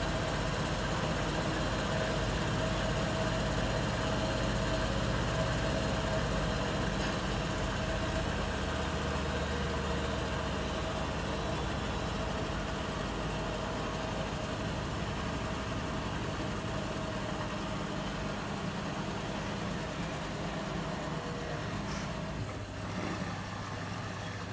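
Bosch WAT28370GB front-loading washing machine in its intermediate spin: the drum and motor run with a steady hum and a faint whine. The sound eases slightly quieter and lower near the end as the spin begins to wind down.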